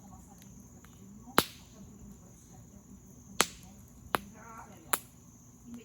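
Campfire burning, with four sharp pops from the wood spread over a few seconds, over the steady high chirring of crickets.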